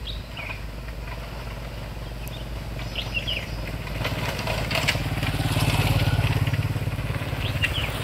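A motorcycle approaching and passing, its engine hum growing louder to a peak about six seconds in, then easing off. Birds chirp briefly a few times over it.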